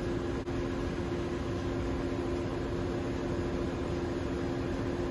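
Steady drone of ship's engine-room machinery: a constant hum with two low tones over an even rush of noise.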